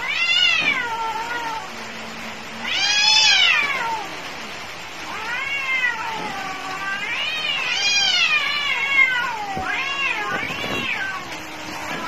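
Cats yowling at each other as in a fight: about five long, wavering yowls that rise and fall in pitch, one after another.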